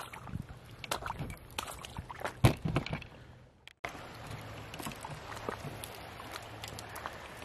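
Footsteps crunching and splashing on a wet, rocky drying reef flat with shallow pools, uneven and irregular. A little past halfway the sound cuts out for a moment. It comes back as a quieter steady wash of shallow water with a few faint splashes.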